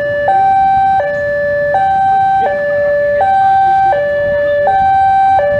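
Electronic level-crossing alarm sounding a steady two-tone high-low signal, each tone held for about three quarters of a second. It warns that the crossing is closing for a train about to depart.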